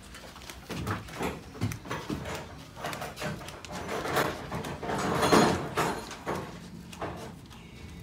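Footsteps of a person walking in sandals on a carpeted floor: irregular soft slaps about every half second to a second, with a louder burst of noise about five seconds in.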